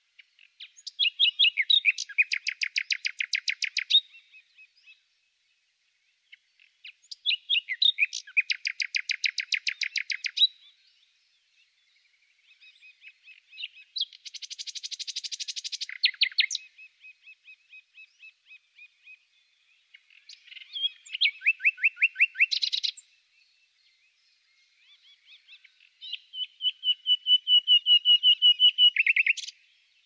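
Songbird singing in five separate phrases, each a few seconds of fast repeated notes, with softer repeated notes in the pauses between them.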